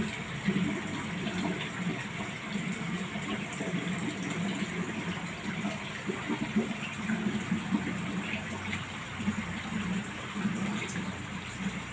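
Steady rush of running water in a large aquarium tank, from its filtration keeping the water circulating.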